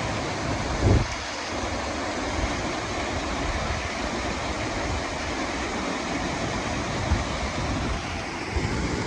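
Steady rushing of a mountain stream and waterfall, with wind rumbling on the microphone and a brief thump about a second in.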